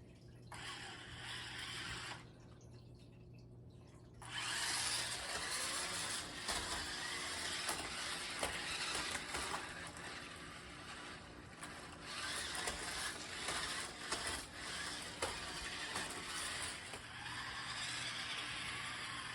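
Toy remote-control stunt car driving, its small electric motors running and wheels rolling, with scattered knocks. It starts up about four seconds in.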